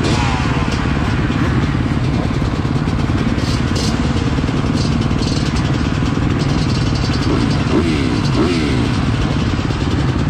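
Motocross dirt bike engines racing, revving up and down without a break, with a few rising and falling revs standing out near the end.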